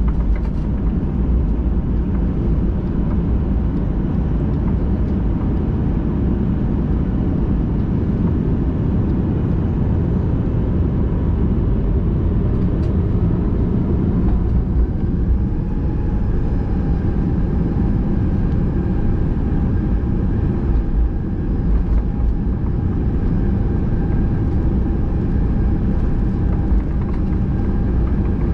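Steady cabin rumble inside a Boeing 737-800 with its CFM56-7B engines running. A faint steady engine whine comes in about halfway.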